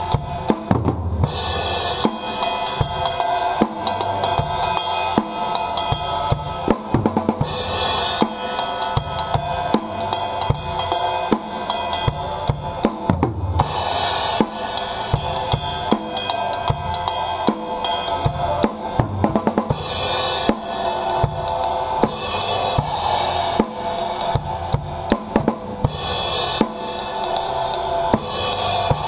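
Drum kit heard from right over the kit, playing a swung broken half-time shuffle with kick, snare and cymbals under the full band. Cymbal crashes wash in about every six seconds.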